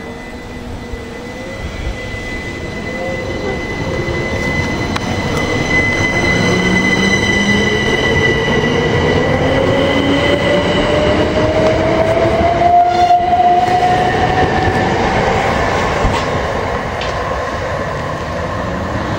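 Southeastern Class 375 Electrostar electric multiple unit pulling away from the platform. Its traction motors give a whine that climbs steadily in pitch as it gathers speed, over a steady high tone and the rumble of wheels on rail. It grows loud as the carriages pass, then eases off near the end as the train draws away.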